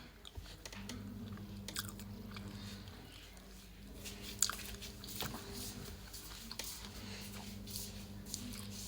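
Mouth chewing a kota, a bread quarter-loaf stuffed with Russian sausage, Vienna, egg and cheese, with a few short crunchy clicks, over a faint steady hum.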